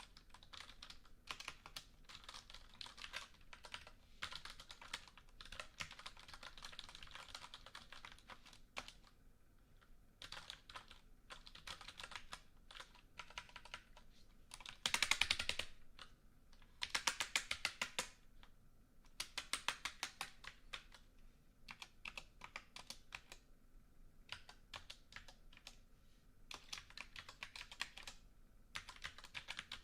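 Typing on a computer keyboard: bursts of quick key clicks with short pauses between them, the loudest and densest run about halfway through, followed by a few fast, even runs of keystrokes.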